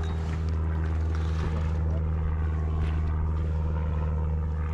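Small outboard motor on an inflatable boat running steadily at low speed, an even, unchanging low engine note.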